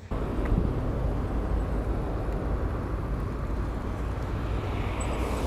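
Steady wind rumble on the microphone with tyre and road noise as an electric bicycle rolls along a street, slowing down.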